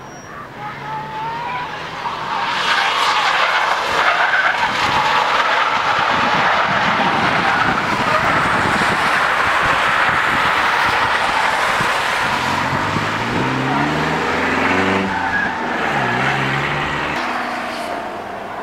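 Car drifting at speed: tyres screeching in a long continuous slide that starts about two seconds in, with the engine revving up and down in the later part.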